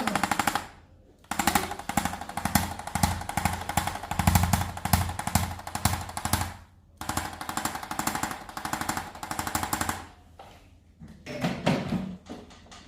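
A handheld electric percussive instrument taps rapidly against the patient's back, about ten taps a second over a steady motor whine, in two long bursts with a brief pause between them. It stops about ten seconds in, and a few softer knocks follow near the end.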